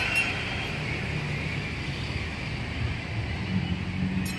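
Steady low rumble of street traffic and vehicle engines, with a faint click near the end.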